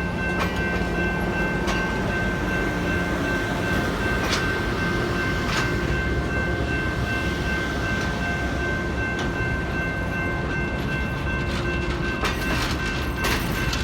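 Diesel-hauled excursion train running, a steady rumble with a few high tones held throughout and scattered sharp clicks, which come more often near the end.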